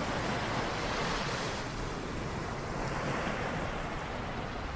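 Steady rushing surf of ocean waves, an even wash of noise without distinct breaks.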